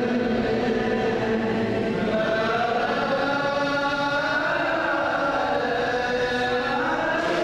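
Ge'ez liturgical chant sung by several voices, with long held notes that slide slowly up and down in pitch without pause.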